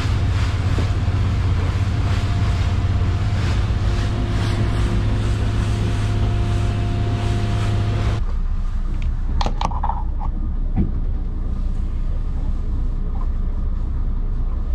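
Boat engine running steadily under way, a deep hum with wind and water hiss, heard from inside the cabin. About eight seconds in the hiss drops away suddenly, leaving a quieter engine hum with a few clicks.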